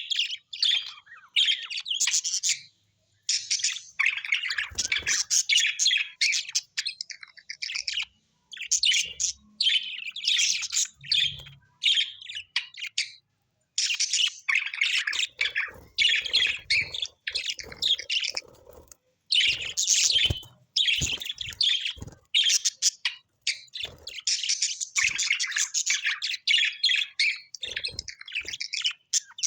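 Small pet parrots chirping and chattering in fast, high runs of notes, broken by brief pauses a few times.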